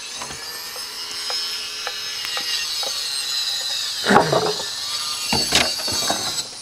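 Electric saw running with a high whine and cutting into timber, the whine dragging down under load. The two loudest cuts come about four and five and a half seconds in.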